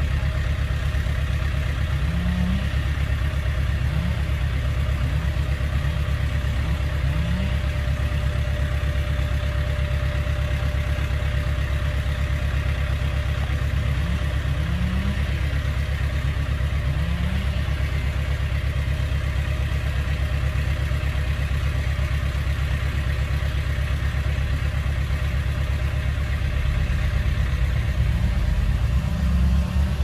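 Heavy diesel engine of an earthmoving machine running steadily, with brief upward rises in pitch every few seconds and a busier, slightly louder stretch near the end.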